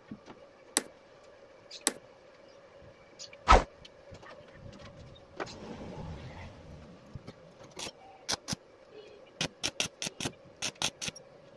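Steel vise parts clinking and knocking against a steel work surface as they are set in place, with one loud knock about three and a half seconds in. Near the end comes a quick, irregular run of sharp crackles from a stick welder tacking the parts together.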